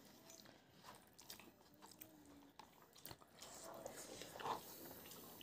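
Faint chewing and small mouth clicks of a person eating a mouthful of soft roti.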